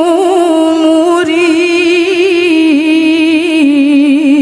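A woman reciting the Quran in melodic tilawah style, holding one long unbroken note with quick wavering ornaments while the pitch steps slowly downward.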